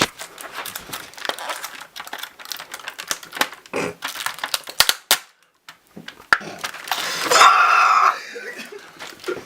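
A run of sharp clicks and rustles from things being handled, with a louder rasping noise about two seconds before the end.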